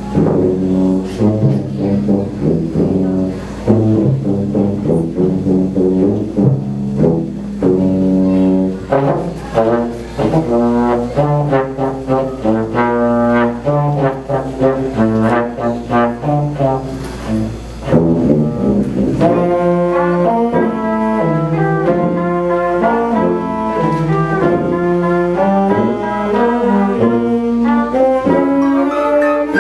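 Student jazz band playing a piece on tuba, baritone horn, trumpet and saxophones. The ensemble gets fuller a little past halfway through.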